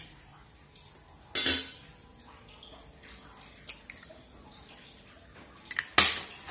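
A hen's egg knocked against a glass bowl to crack it: a sharp knock about one and a half seconds in, a small click of shell a little later, and a few more sharp knocks near the end.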